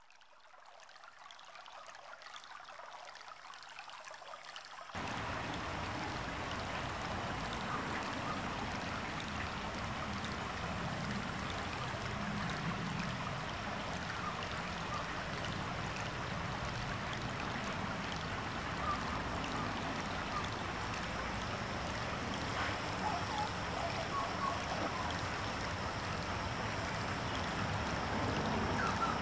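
Steady rush of running water from a garden water feature. It fades in faintly, then jumps abruptly louder about five seconds in and holds steady.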